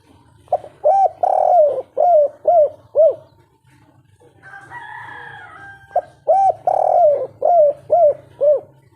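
Spotted dove cooing in its three-note-ending 'kuk 3' song: two phrases of about six arched, rising-and-falling coos each, the first starting about half a second in and the second about six seconds in. A fainter, rougher call comes between them, and a low steady hum runs underneath.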